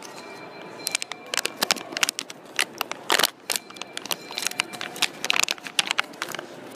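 Foil blind-box bag crinkling and crackling in the hands as it is pulled open, a quick run of sharp crackles with the loudest burst about three seconds in.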